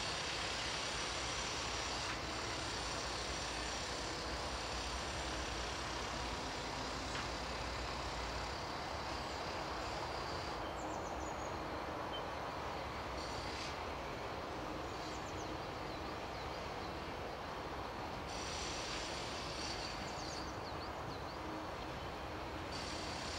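Steady outdoor background rushing noise, with a few faint, short high chirps of small birds now and then.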